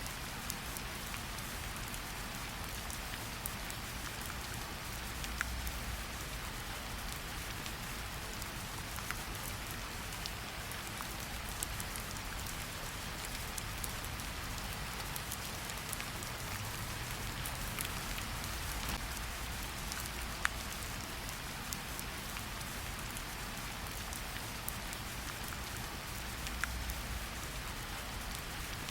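Steady rain, with a low rumble underneath and scattered sharp clicks and pops.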